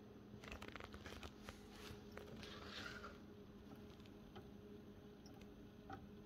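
Near silence over a steady low hum, with scattered faint clicks and a brief soft rustle about two to three seconds in, then a few isolated faint ticks.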